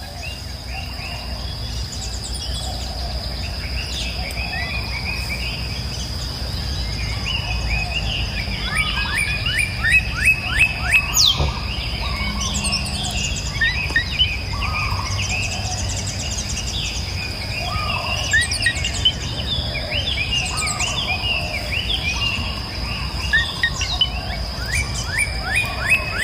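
Songbirds singing and calling, with repeated fast trills of quick down-slurred notes, over a steady high-pitched whine and a low outdoor rumble.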